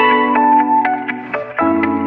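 Background music: plucked, bell-like melodic notes over sustained chords, with a low bass note coming in near the end.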